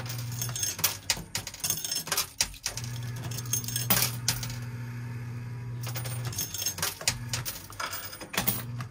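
Metal coins clinking and clattering in an arcade coin pusher machine as coins are fed in and land on other coins on the sliding shelf. Many irregular clinks sound over a steady low hum.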